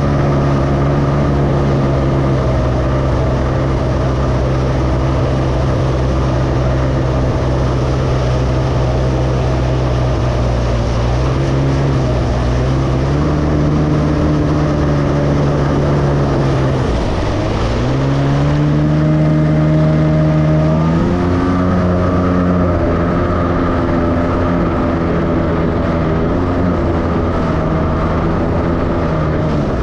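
Jet ski engine running at speed over a rushing haze of water and wind. About 17 seconds in the throttle is briefly let off and the engine note drops, then it revs back up and holds a higher pitch.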